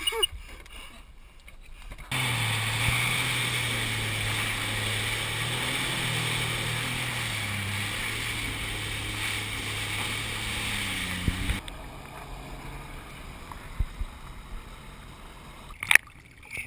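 Sea-Doo jet ski engine running steadily at speed over rushing water and wind noise. It starts suddenly about two seconds in and cuts off sharply about twelve seconds in, leaving quieter water sounds with a few short knocks.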